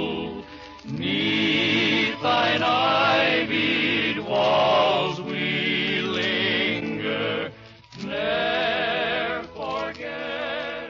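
Slow, sustained music with singing, in long held phrases broken by brief pauses.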